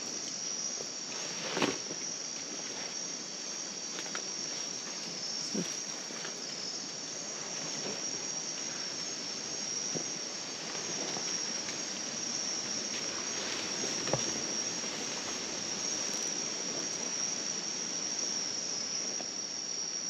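Steady high-pitched chorus of night insects in tropical rainforest, with a few short knocks scattered through.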